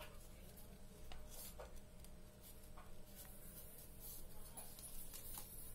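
Faint rustling and crinkling of a sheet of origami paper being folded and creased by hand, with a soft crackle every second or so over a low steady hum.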